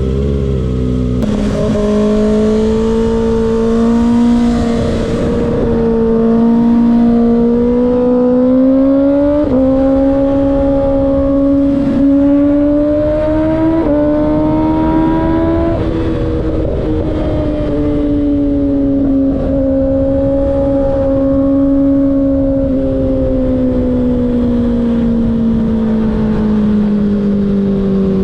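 2024 Kawasaki ZX-6R's 636 cc inline-four running through an M4 slip-on exhaust at highway speed: the engine note climbs in several stages through the first half, then falls steadily over the last ten seconds or so as the bike eases off.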